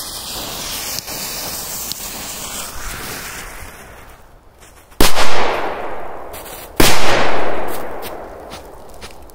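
A steady hiss, like a lit fuse burning, for about four seconds, then two firecrackers explode about two seconds apart. Each bang echoes away over a second or more.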